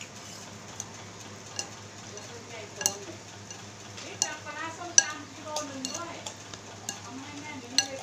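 A metal spoon and chopsticks stir noodles in a plastic bowl of soup, with scattered light clinks and taps against the bowl.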